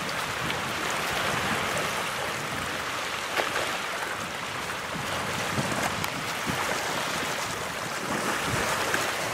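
Steady wash of small waves lapping over shallow water and the edge of a tidal flat, with wind on the microphone.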